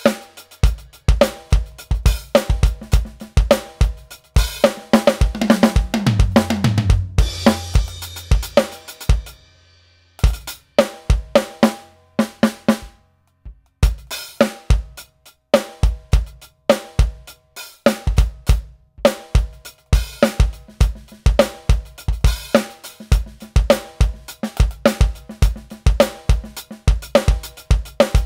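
Roland VAD706 V-Drums electronic drum kit played as a groove of kick, snare, hi-hat and cymbal sounds from its module. About five seconds in, a fill runs down the toms, falling in pitch, and ends on a long ringing low tom and cymbal. The playing breaks off for about a second near the middle, then the beat starts again.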